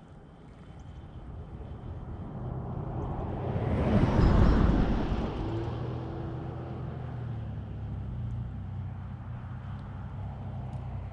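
A motor vehicle drives past, getting louder up to about four seconds in and then fading. A low engine hum lingers afterwards.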